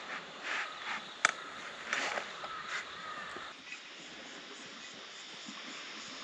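A crow cawing several times in short calls, with one sharp click about a second in. The calls stop about halfway, leaving a steady faint hiss of outdoor background.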